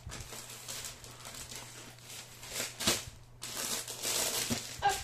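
Plastic film on a rolled diamond-painting canvas crinkling and rustling as the roll is handled and lifted, with a sharp crackle about three seconds in and a longer stretch of rustling from about three and a half seconds to near the end.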